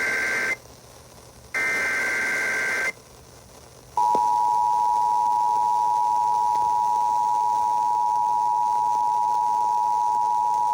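Emergency Alert System broadcast. The end of one SAME header data burst is heard, then a second full burst from about 1.5 to 3 seconds, with short gaps of silence around it. About four seconds in, the steady two-tone EAS attention signal starts and holds. Together they announce an emergency alert, here a flash flood warning.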